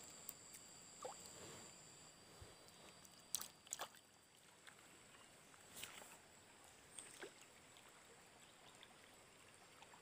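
Faint trickle of a shallow rocky stream, with a few light clicks scattered through it and a thin high steady tone that stops about two seconds in.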